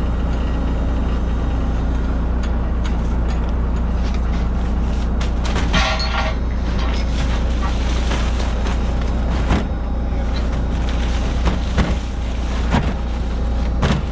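A fishing boat's engine running steadily under way, with a deep constant rumble. A brief higher-pitched sound about six seconds in and a few sharp knocks in the second half.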